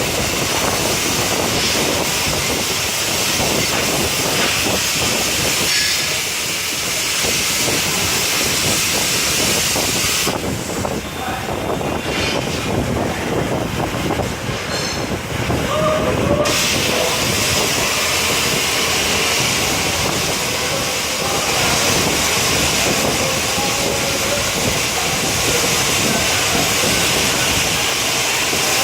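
Cutmaster plasma torch on a CNC cutting table cutting sheet metal, a loud steady hiss. About ten seconds in, the high part of the hiss drops away for about six seconds, the arc stopping between cuts, then it returns.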